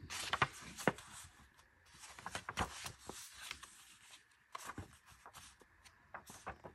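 Pages of a small bound paper photo book being flipped and handled: quick, irregular paper rustles and flicks.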